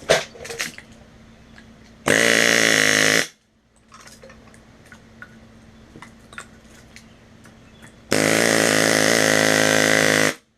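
A power tool running in two bursts, about a second and then about two seconds, each with a steady pitched hum and stopping abruptly; faint knocks and clicks come between them.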